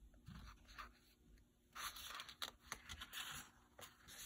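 Faint paper rustle of a picture book page being turned by hand, with a few soft ticks, starting about two seconds in.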